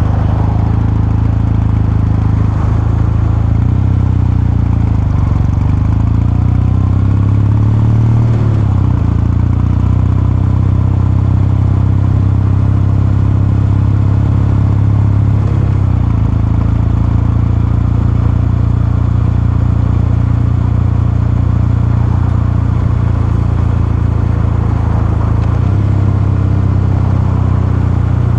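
Kawasaki Meguro K3's air-cooled 773 cc parallel-twin engine and exhaust running under way, with a steady, deep exhaust note. The engine note shifts a few times, including a short rise in pitch before one change.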